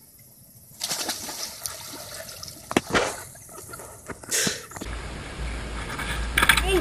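Water splashing and sloshing as a man wades through a shallow, lily-pad-covered pond, with a few sharper splashes. About five seconds in it gives way to wind buffeting the microphone.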